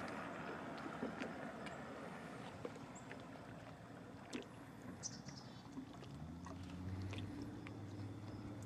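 Faint lakeside ambience with scattered small clicks. About six seconds in, the low steady hum of a distant motorboat engine sets in.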